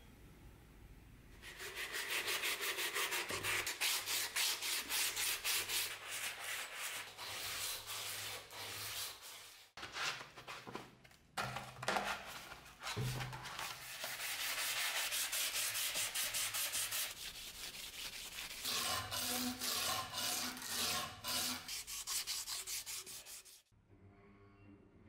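Sandpaper rubbed rapidly back and forth over the rusty steel blade of an old drawknife, in long runs of quick strokes broken by a short pause with a few knocks.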